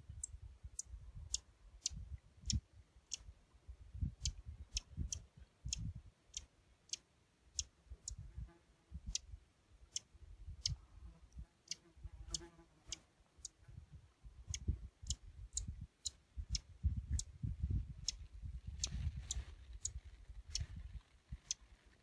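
A flycatcher repeating short, sharp, high call notes, one or two a second at an uneven pace, over a gusty low wind rumble on the microphone.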